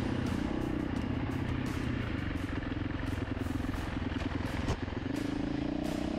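Dirt bike engine running on a trail ride, its pitch rising and falling as the throttle changes. There are scattered clattering knocks, with one sharp knock about three-quarters of the way through.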